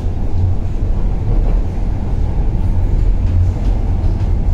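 Metro train running at speed, heard from inside the carriage: a steady low rumble of wheels on rail and running gear.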